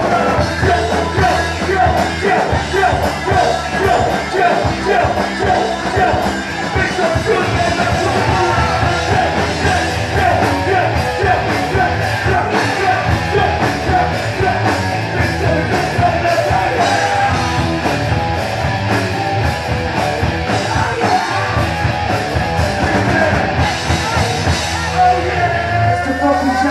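Live rock band playing loudly: guitars, bass and drums with yelled vocals. Near the end the band holds a final chord under a wash of cymbals.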